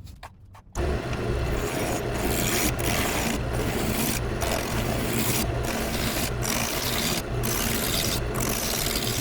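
Wood lathe running while a roughing gouge cuts a hard macadamia blank down to round, a dense shaving, scraping noise over the motor's hum. It starts abruptly about a second in, with short breaks in the cutting every second or so as the gouge is moved along.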